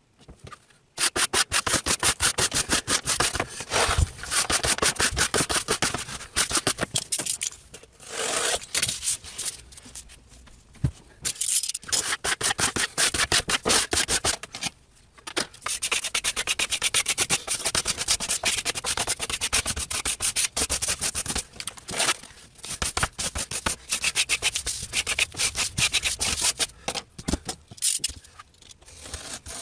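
Application tape being rubbed down over cut vinyl decals with a squeegee: a dense, quick, scratchy rubbing in long runs, with short pauses about ten and fifteen seconds in.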